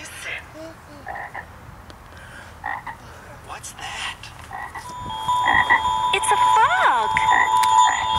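Frog croaking in short, spaced calls. About five seconds in, a louder steady tone joins; it dips and rises in pitch once near the end.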